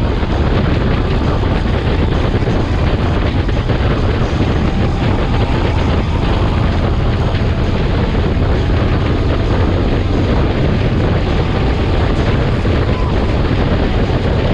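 Steady wind rush over the microphone of a motorcycle trike riding at road speed, with the low rumble of the engine and road underneath.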